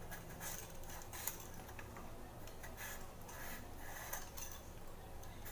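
Pumpkin being sliced on an upright floor-mounted kitchen blade (bonti): a run of faint, crisp cutting strokes at irregular spacing.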